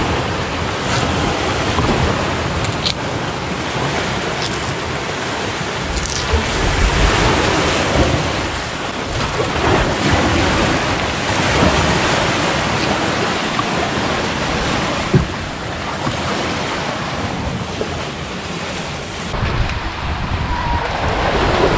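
Sea surf washing in, swelling and easing every few seconds, with wind buffeting the microphone.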